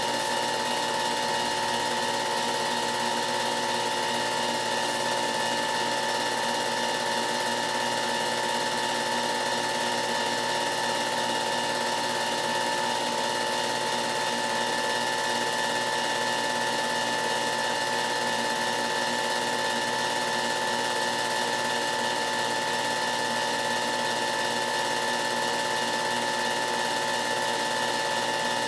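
Film projector running: a steady mechanical whir holding several fixed tones, unchanging throughout.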